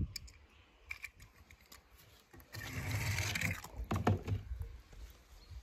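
Toy cars being handled: scattered light clicks and taps, a short scraping rustle about two and a half seconds in, and a sharper knock about a second later.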